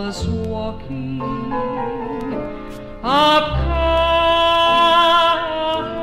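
Gospel vocal group singing in close harmony; about three seconds in, the voices swell into a loud held chord over a sustained bass note.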